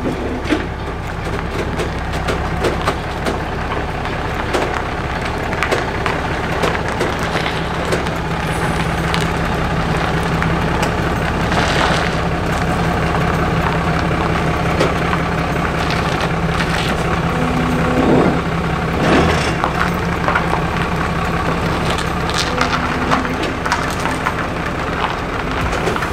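Pickup truck engine running as it slowly tows a flatbed trailer across gravel, with the tires crunching and scattered sharp cracks and knocks from the trailer and its wooden crate.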